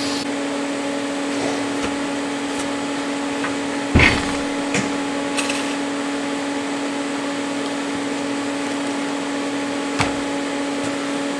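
A TIG welding arc's hiss cuts off right at the start. Then a steady machine hum with an even tone stays on, with one sharp knock about four seconds in and a few light clicks later.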